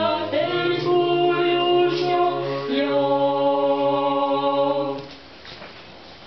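Small mixed choir singing unaccompanied Orthodox church chant, with long held notes over a steady low drone part. The singing ends about five seconds in, leaving faint room noise.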